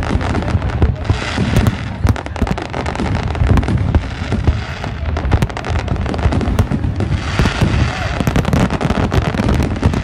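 Aerial fireworks in a dense barrage: many shells bursting in rapid, overlapping bangs with no pause, over a steady low rumble.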